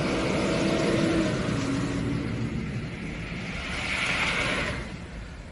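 Emergency vehicles of a procession, a large truck and police cars, driving past on a wet road: engine drone and tyre noise, with a louder tyre hiss about four seconds in as a car goes by, then fading.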